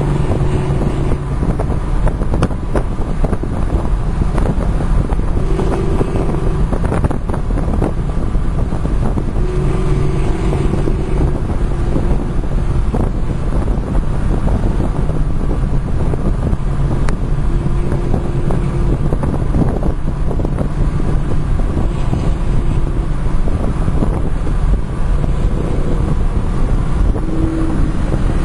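Wind buffeting the microphone with steady road and engine noise heard from inside a car cruising at highway speed, a low engine drone showing through now and then.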